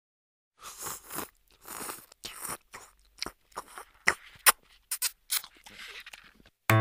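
A drink slurped through a straw in a string of short, noisy sucks with a few sharp clicks. Piano music comes in right at the end.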